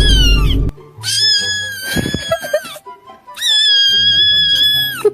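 Cat screaming meme sound effect: a short falling yowl, then two long held high yowls of about two seconds each, over background music with low notes. A low rumble fades out in the first moment.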